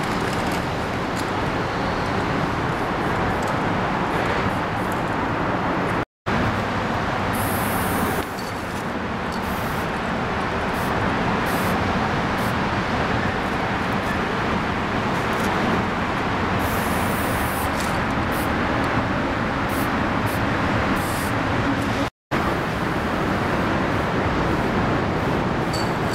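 Steady hum of road traffic with a few short hisses of an aerosol spray-paint can, the longest about a third of the way in and again about two-thirds in. The sound cuts out for an instant twice.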